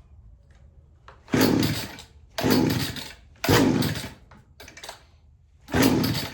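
Two-stroke chainsaw being pull-started: four sharp yanks on the recoil starter, each a short burst of the engine turning over that dies away without the saw staying running, a longer pause before the fourth. The owner suspects the engine is flooded.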